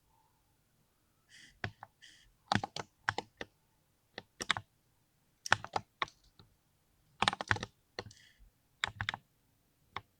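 Keys of a small mechanical keyboard being typed on in short irregular bursts of clacks, with brief pauses between them and a last keystroke near the end.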